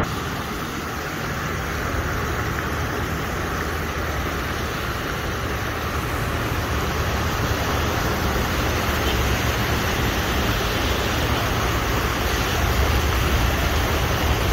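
Floodwater rushing across desert ground: a steady rushing noise with a low rumble underneath, growing a little louder near the end.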